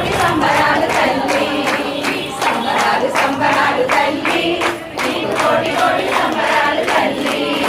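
A group of people singing a devotional song together, with regular percussive strikes keeping the beat.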